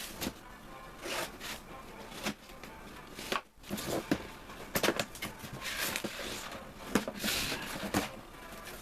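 Cardboard toy box and its plastic packaging being opened and handled: irregular rustling, scraping and light taps.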